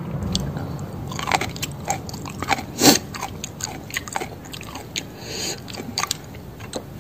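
A person chewing a mouthful of spicy pounded water-spinach salad close to the microphone, with irregular crunches as the raw stems are bitten through. The loudest crunch comes about three seconds in.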